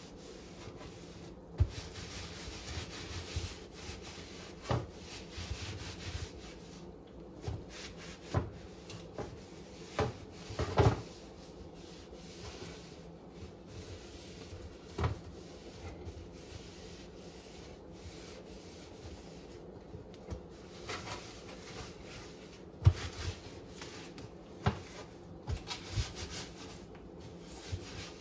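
A hand rubbing and smearing baking soda and water paste over the inside of an oven, a soft scraping against the oven floor and walls, broken by a dozen or so short sharp knocks and taps.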